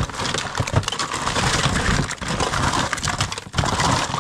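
Rummaging by hand through a pile of stored belongings, likely children's toys: continuous rustling with many small knocks and clatters as items are shifted and tossed aside.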